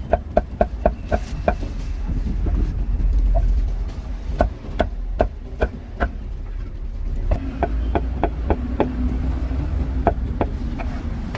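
Cleaver chopping roast meat: a quick run of sharp chops, about four or five a second, near the start, then shorter bursts of chops with pauses between, over a steady low rumble.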